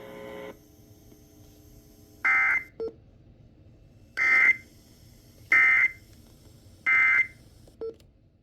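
Emergency Alert System SAME digital data bursts: four short, harsh, buzzy screeches of the data signal, the last three about a second and a half apart. This is the end-of-message code that closes the alert.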